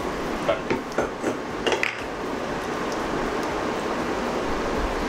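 Wooden spatula stirring a thin coconut-milk chicken gravy in a non-stick pan, with a few light knocks and scrapes against the pan in the first two seconds, then a steady hiss.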